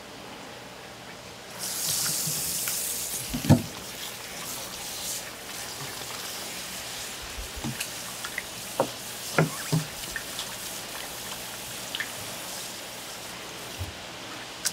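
Running water that comes on loudly about a second and a half in, then runs on more quietly, with a sharp knock soon after and scattered clicks and knocks later.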